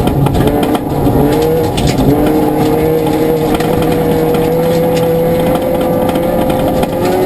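Ford Fiesta ST rally car's engine heard from inside the cabin, driven hard on gravel: the engine note drops with quick gear changes about three times in the first two seconds, then rises slowly in one long pull. Constant noise of tyres on gravel, with scattered stone clicks, runs underneath.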